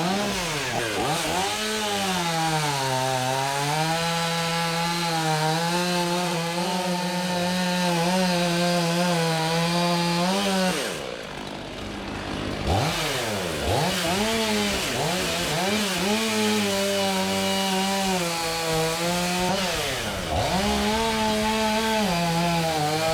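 Two-stroke chainsaw running at high revs through wood, its pitch sagging as the chain bites and recovering as it eases. There is a short drop in level about halfway through.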